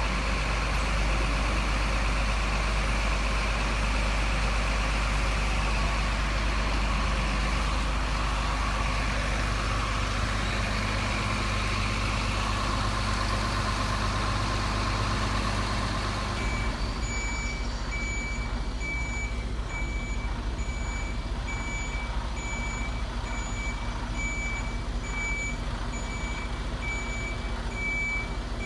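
RC model truck running with a steady mechanical noise; about halfway through, its reversing beeper starts, beeping evenly about one and a half times a second.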